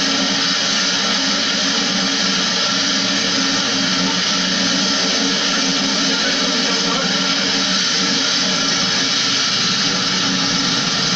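Pressure washer running steadily, its water jet spraying into a window-type air conditioner as the unit is cleaned, a constant hiss over a machine hum.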